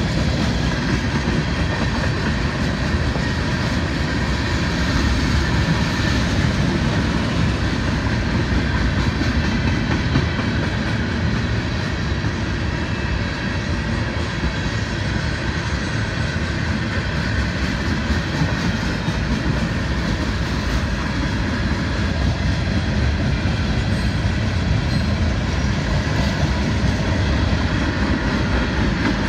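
Florida East Coast Railway freight train's cars, tank cars and then hoppers, rolling past steadily with the steady rumble of steel wheels on rail.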